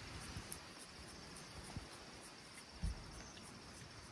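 Insects chirping: faint, evenly repeating high-pitched pulses over a low hiss, with one short low thump about three seconds in.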